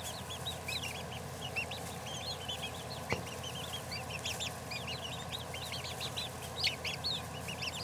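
Young Silver Grey Dorking chicks peeping as they forage, many short high cheeps from several birds overlapping without a break.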